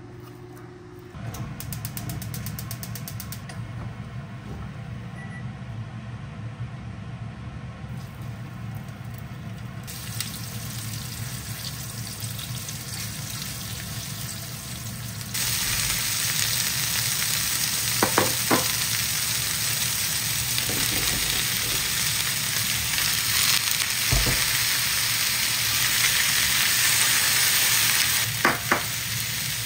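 Floured chicken pieces sizzling in oil in a frying pan, then chicken and vegetables stir-frying, the sizzle starting about a second in and getting louder about halfway through. A few light knocks of utensils against the pan.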